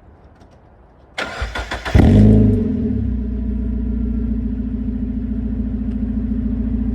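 Mazda MX-5 mk2.5 four-cylinder engine started with its rear silencer removed: the starter cranks briefly about a second in, the engine catches with a loud flare, then settles into a steady idle through the open exhaust.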